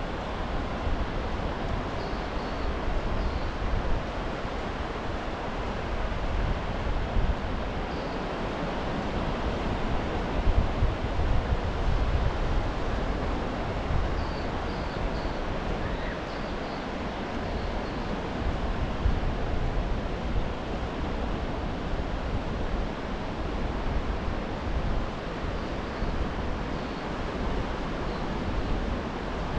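Steady wash of small surf on a sandy beach, mixed with wind rumbling in gusts on fur-covered microphones.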